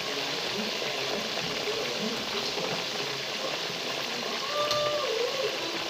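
Peanuts frying in hot oil in a nonstick pan: a steady hissing sizzle of rapidly bubbling oil.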